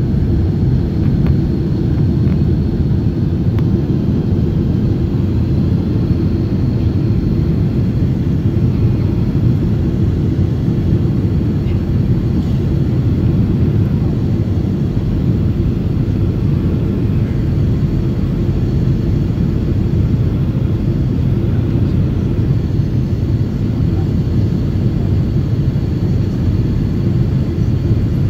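Steady cabin noise inside an airliner on descent: a low rush of airflow and engine drone, with a faint thin steady whine above it.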